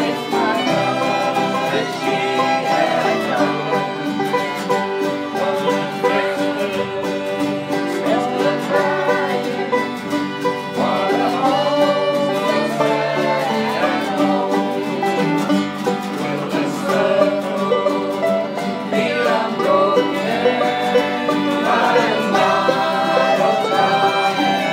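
Acoustic string band playing a lively country tune: a fiddle carries the melody over strummed acoustic guitars and other plucked strings.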